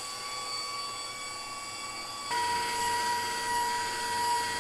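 KitchenAid stand mixer motor running steadily as it drives its pasta attachment, a whine of several steady tones. A little over two seconds in, the tone shifts and gets louder.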